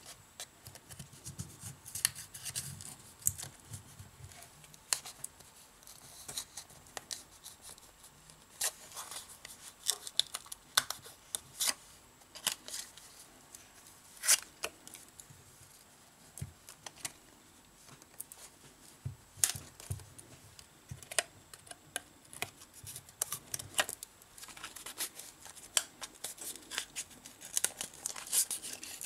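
Glued display module of a Samsung Galaxy J7 (2016) being pried and peeled off its phone frame: irregular clicks, crackles and tearing of the softened adhesive. It comes away with difficulty.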